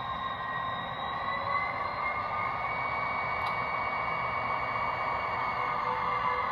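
The train brake sound of a TCS WOW Sound decoder in a Bachmann HO GP35, played through the model's small onboard speaker as the locomotive slows to a stop: a quiet, steady hiss with high ringing tones, one of which rises slightly in pitch about a second in.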